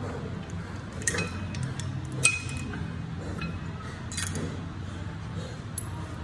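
Metal gym weights clinking: about four sharp clinks that ring on briefly, the loudest about two seconds in, over a steady low room hum.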